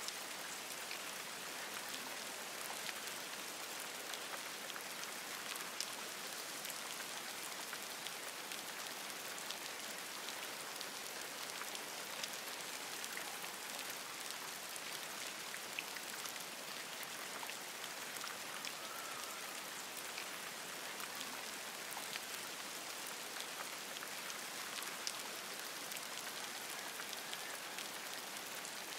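Steady rain falling on forest leaves: an even hiss with many separate drops ticking through it.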